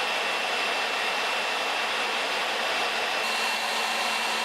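An old heavy-duty electric drill motor runs steadily with a high whine, turning the boring bar of a homemade line boring machine while the cutter feeds through the bore. About three seconds in, the sound brightens and a low hum joins.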